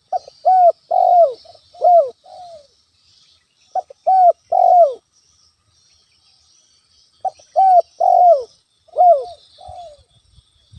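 Spotted dove (tekukur) cooing in three phrases, each a run of several short, downward-sliding coos, with pauses of a second or two between phrases. Faint high chirping runs underneath.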